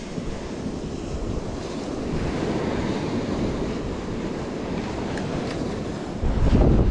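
Gulf surf breaking on the beach, with wind buffeting the microphone; a stronger gust of wind rumble comes in about six seconds in.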